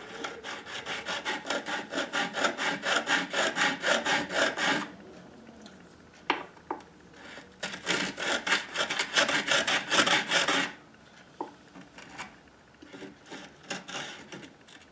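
Diamond file rasping back and forth across ukulele fret wire, reshaping the rounded crown of frets that were filed flat on top. Quick, even strokes, about five a second, come in two runs with a pause between, then a few lighter strokes near the end.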